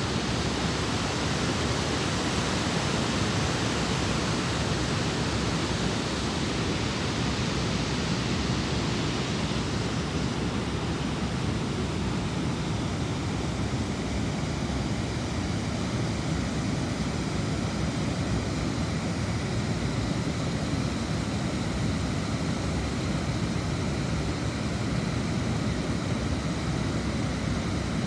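Water rushing steadily over a river weir, a constant noise of falling water; the high hiss eases a little about ten seconds in.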